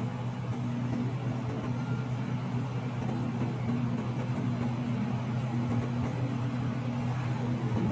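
Steady low mechanical hum over a background haze, with no sudden events.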